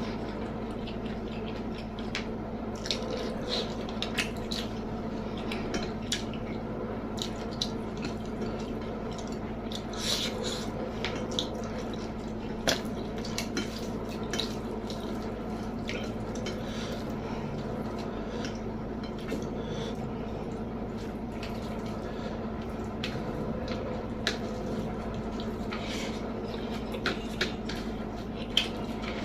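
Close-miked eating sounds: wet chewing and lip smacks with scattered sharp clicks against a plate, the loudest about a dozen seconds in and near the end. A steady low hum runs underneath.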